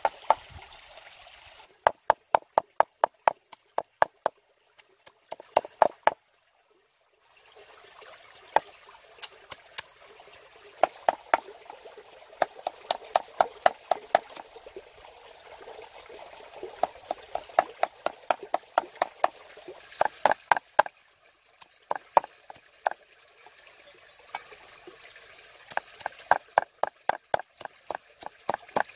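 Cleaver chopping rapidly on a round wooden cutting board, mincing: runs of sharp knocks about five a second with short pauses between runs. A stream trickles underneath.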